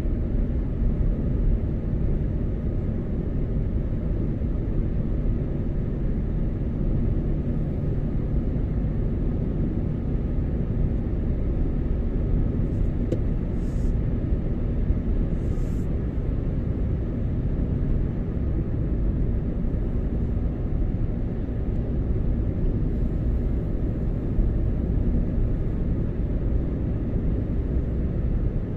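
A car driving at a steady pace: an even, low rumble of engine and road noise that holds steady throughout.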